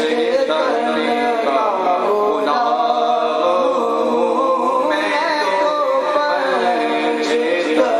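A man singing a naat, a devotional song in praise of the Prophet Muhammad, solo into a microphone, in long held notes that waver and turn.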